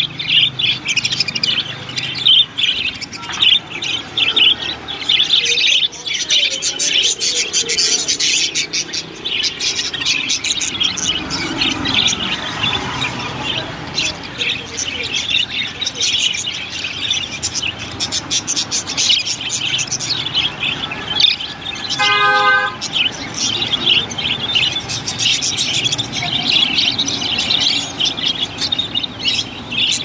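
A flock of budgerigars chattering and warbling, a dense, continuous stream of overlapping chirps. A short steady tone cuts in about two-thirds of the way through.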